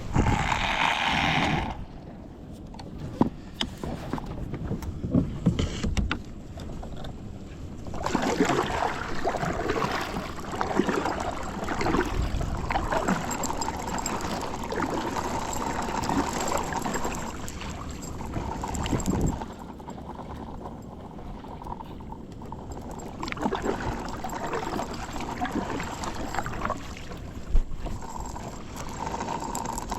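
A fishing kayak being paddled at sea: irregular paddle splashes and water sloshing around the hull, busier and louder through the middle stretch.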